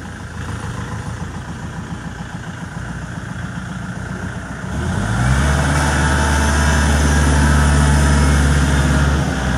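Kubota L4508 tractor's diesel engine idling with a pulsing beat, then revved up about five seconds in and held steady at a higher, louder speed, dipping briefly near the end.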